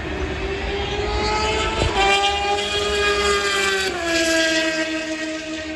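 Train horn blowing one long sustained chord, its pitch dropping slightly about four seconds in, over the rumble of highway traffic.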